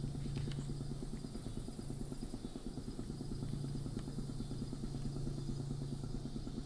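A steady low mechanical hum, like an engine or motor running, with a fast even flutter.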